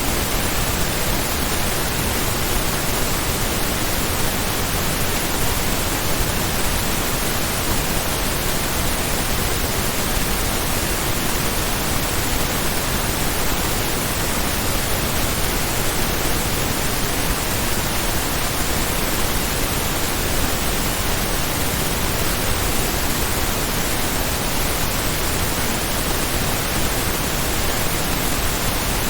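Pink noise test signal: a steady, even hiss across the whole range, true stereo, loudness-normalised to about −14 LUFS with peaks at −1 dB.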